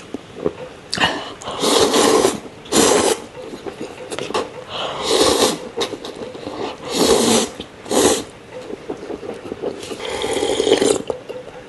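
A man slurping instant noodles in big mouthfuls: loud, airy slurps roughly every second or two, about seven in all, with small clicks between.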